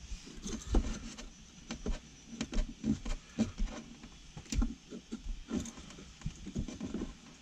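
Fingers picking and scratching at a small blob of butyl sealant stuck to a painted cupboard wall: irregular small clicks, taps and scrapes.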